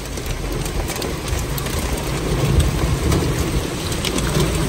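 Heavy rain falling on a car's roof and windscreen, heard from inside the car: a steady dense patter with a low rumble beneath it.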